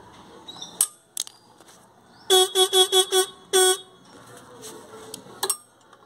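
Motorcycle disc horn sounded in a quick series of five short beeps and then one slightly longer beep, as it is tested while its tone-adjusting screw is set with a screwdriver. A few brief clicks come before and after the beeps.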